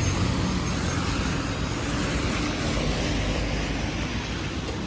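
Road traffic on a rain-wet street: a steady hiss of tyres on the wet surface with the low hum of vehicle engines.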